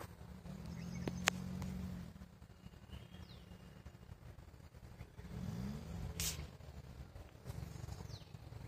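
Faint motor-vehicle engine running, its pitch rising and falling a few times, with birds chirping in the background and one sharp click about a second in.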